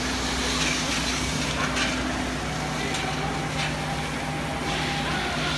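Steady low engine hum, with faint voices in the background.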